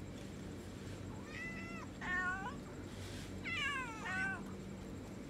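Several hungry cats meowing at feeding time: four meows in two pairs, starting about a second in and again near four seconds, the later pair falling in pitch. A steady low hum runs underneath.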